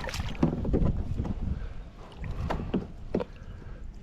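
Wind rumbling on the microphone in a kayak, with a scattering of short knocks and clatters from handling on board.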